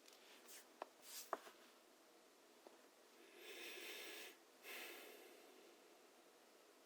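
A pause in keyboard typing: a few faint clicks in the first second and a half, then two soft breaths, each about a second long or less.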